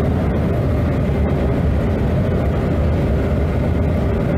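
Steady engine and road noise inside a vehicle's cab cruising along a highway.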